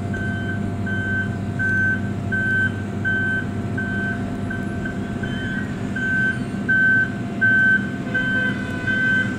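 Asphalt milling machine's diesel engine running steadily while its warning beeper sounds a single high tone about three times every two seconds.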